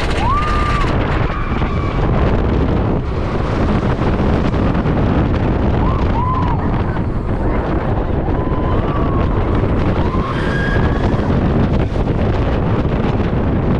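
Roller coaster ride on Iron Gwazi: a steady rush of wind on the microphone over the train's running noise, with a few short high cries rising and falling.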